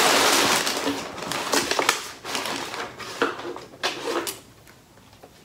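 Crumpled brown kraft packing paper crinkling and rustling as hands rummage inside a cardboard shipping box. A loud, continuous stretch of about two seconds is followed by a few shorter rustles that stop about four and a half seconds in.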